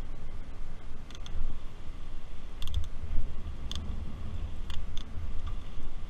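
Wind buffeting the microphone with a low rumble while riding a bicycle, with a few sharp, irregular clicks and ticks from the bike.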